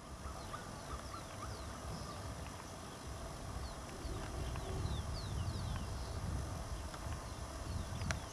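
Wind rumbling on the microphone, with small birds calling in short downward-sliding chirps scattered throughout. A few sharp clicks, the loudest near the end.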